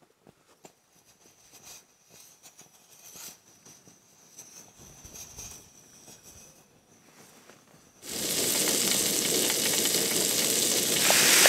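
Faint handling clicks and rustles, then about eight seconds in a steady sizzle starts suddenly: fat frying hot in a frying pan, ready for the pyttipannu hash.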